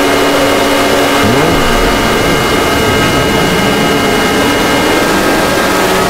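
Synthesized emergency-alert alarm: a loud, steady roar of harsh noise with several high steady tones running through it and a brief low swooping pitch about a second in. Some of the high tones drop out near the end.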